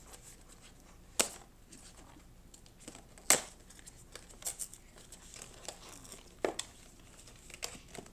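Blind-box packaging being torn and crinkled open by hand, with a run of sharp, separate crackles and snaps, the loudest about three seconds in.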